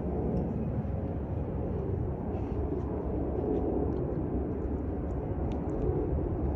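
Airbus A330-300 airliner noise: a steady low rumble, with a faint scatter of small clicks and rattles.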